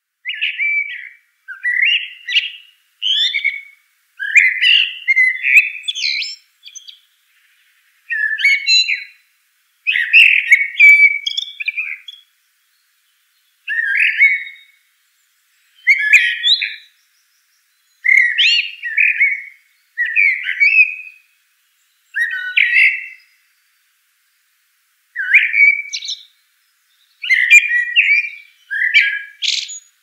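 Northern mockingbird singing: a string of short, varied phrases, one every second or two, with brief silent pauses between them.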